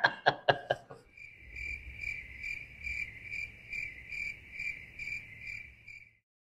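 Crickets-chirping sound effect: an even chirp repeating a little over twice a second, starting about a second in and stopping just before the end. It is preceded by a quick run of sharp clicks in the first second.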